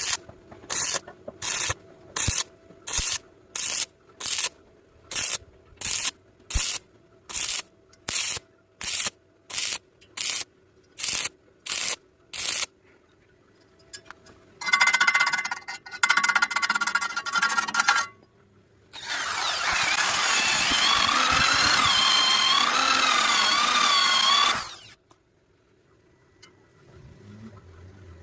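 About sixteen rhythmic scraping strokes, roughly two a second, then a motorised tool runs twice: briefly with a steady whine, then for about six seconds with a whine that wavers up and down before cutting off.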